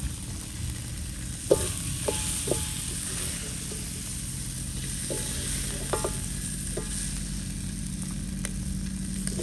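Food sizzling as it fries in a metal pan, with a steady hiss, while a utensil stirs it and knocks against the pan about half a dozen times, some knocks ringing briefly.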